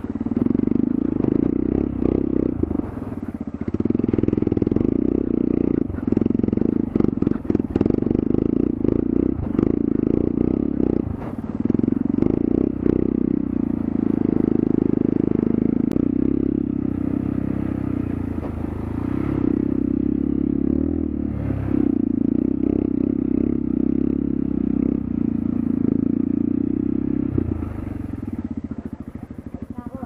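Dirt bike engine running under varying throttle while riding a rough dirt trail, with knocks and rattles from the bike over the bumps. The engine sound drops off near the end.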